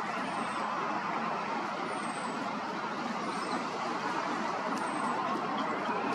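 Steady rushing background noise, with a thin, very high, falling peep repeating about every one and a half seconds.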